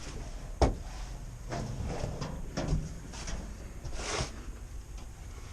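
Handling of a metal panel or cover: a sharp clack about half a second in, then lighter knocks, rattles and a scrape.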